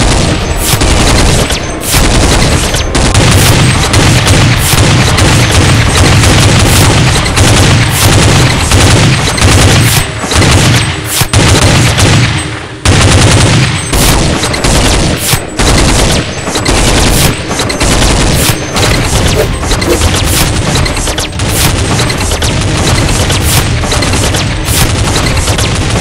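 Dense, rapid machine-gun fire and gunshot sound effects, nearly continuous, briefly letting up about 13 seconds in.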